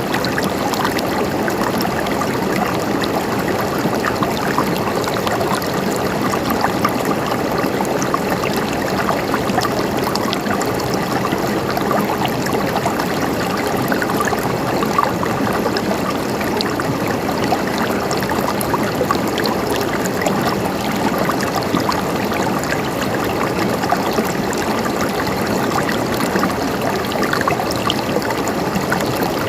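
River water flowing steadily over stones, a continuous rushing and burbling.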